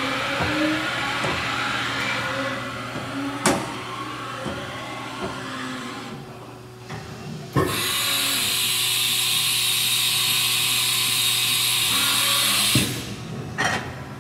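Haas VF-3 CNC vertical machining center running with a steady low hum, its axis drives moving the table, with shifting tones and a few sharp knocks. About halfway through a loud steady hiss starts suddenly and cuts off near the end.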